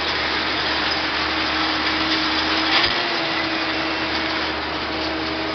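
Allis-Chalmers 7000 tractor's diesel engine running steadily under load while pulling a grain drill, with one brief knock about three seconds in.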